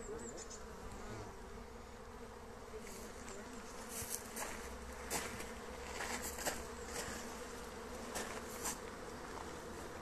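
A honeybee colony buzzing steadily around an opened hive, flying strongly, with a few light knocks about halfway through.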